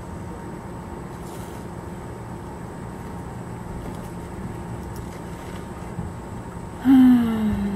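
Steady low hum under the whole stretch. Near the end a loud, drawn-out voice-like call starts suddenly and slides down in pitch for about a second.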